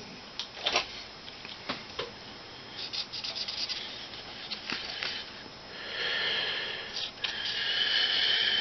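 Light clicks and taps of small hand tools and a workpiece being handled, then two longer rubbing, scraping strokes lasting a second or more each.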